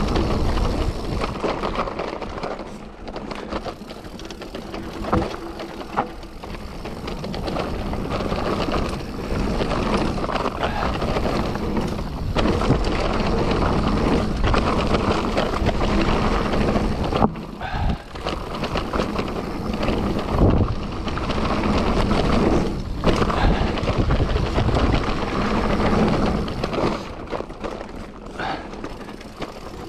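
Mountain bike riding down a wet trail: steady tyre noise with frame and drivetrain rattle, broken by sharp knocks over bumps, under gusting wind noise on the microphone.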